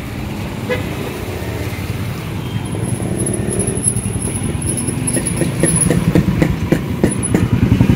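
A motor engine running steadily with a fast, even beat, growing louder in the last few seconds.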